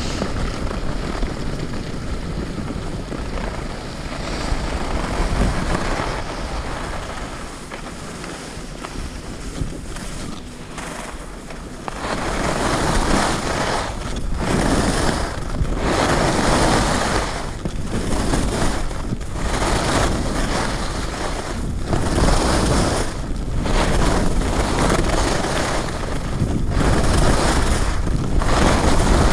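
Skis sliding and carving over packed snow at speed, with wind buffeting the action camera's microphone. The rushing noise gets louder about twelve seconds in and then swells and fades with each turn.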